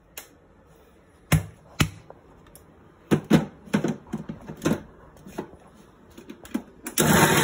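A series of knocks and clicks as a mixer-grinder jar is closed, set on its base and the speed knob turned, then, near the end, a Maharaja Whiteline Smart Chef mixer grinder's motor starts, grinding boiled chickpeas with oil into paste.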